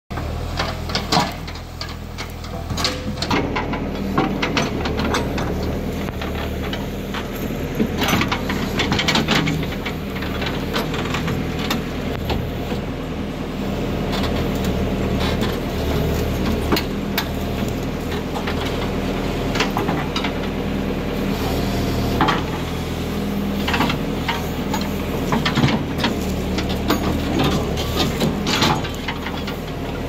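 Bull backhoe loader's diesel engine running steadily under load while the backhoe digs, with scattered knocks and scrapes as the bucket works through stony soil.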